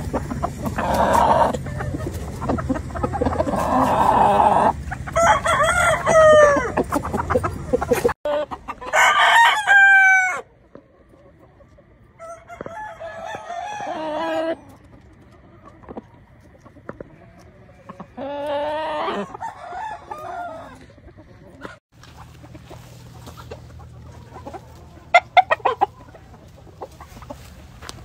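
Roosters crowing several times, each a long call that falls in pitch at the end, with hens clucking during the first few seconds.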